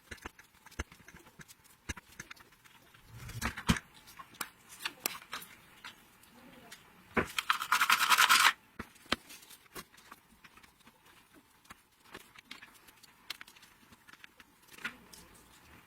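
Hand tools and small metal parts handled on a workbench: scattered clicks and taps. About seven seconds in comes a louder, dense rasping burst lasting about a second and a half.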